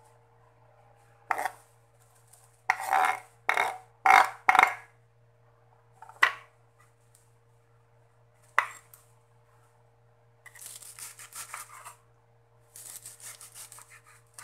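A kitchen knife sweeps shredded cabbage off a wooden cutting board into a glass bowl with several loud scrapes, then gives two sharp knocks. From about ten seconds in, fast repeated knife strokes slice a cabbage on the wooden board, in two quick runs.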